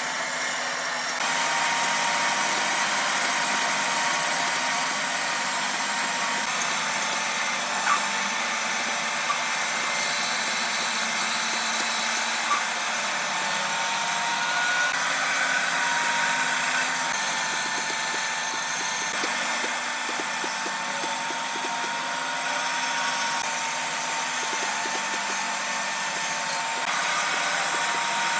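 Woodworking power tool running steadily with a constant high whine, the load shifting a little now and then, and a few light ticks from the work.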